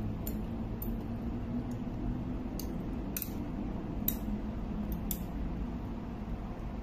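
Milky coffee poured from a metal tumbler over ice cubes in a tall glass, the ice clicking and cracking sharply several times at irregular intervals, over a low steady hum.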